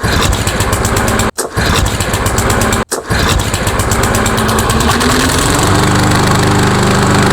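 PowerMore 140cc single-cylinder overhead-valve lawnmower engine starting on the pull and running, faltering briefly twice early on before its speed rises and settles into a steady run about six seconds in. The engine now keeps running after a carburetor cleaning, which confirms that a dirty carburetor, starving the main jet of fuel, was why it would start and then die.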